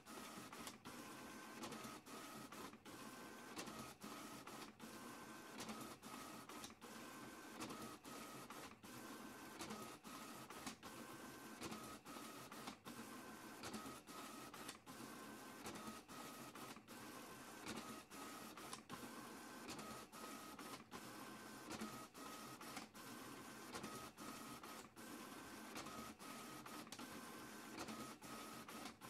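Printer running through a print job, faint, its mechanism cycling in a regular pattern with a whine that comes and goes about every two seconds.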